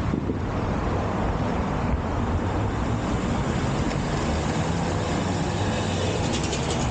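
Steady rumble of inline skate wheels rolling over pavement, mixed with city street traffic, with some extra clatter near the end.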